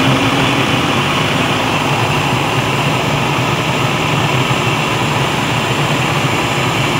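Countertop blender running steadily on high, its blades churning blueberries, milk and cream cheese into a smoothie.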